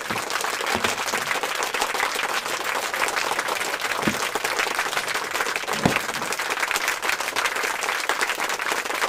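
Steady applause, a crowd clapping, starting abruptly. Two soft knocks come through it about four and six seconds in.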